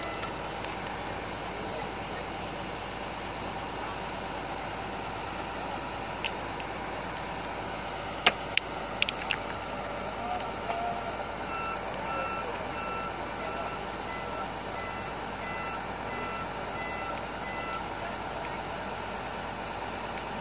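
Heavy diesel machinery running steadily, with a backup/travel alarm beeping in a regular pattern at the start and again for several seconds in the second half. A sharp clank about six seconds in and a quick cluster of four clanks around eight to nine seconds, as the dead excavator is shoved up onto the trailer.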